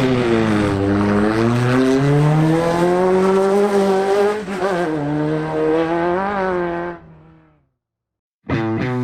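Off-road race vehicle's engine running hard. Its pitch sags in the first second, then climbs and rises and falls with the throttle, and it fades away about seven seconds in. Music starts just before the end.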